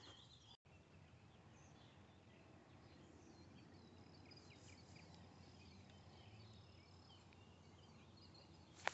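Near silence: faint outdoor ambience with scattered faint high chirps and one brief sharp click just before the end.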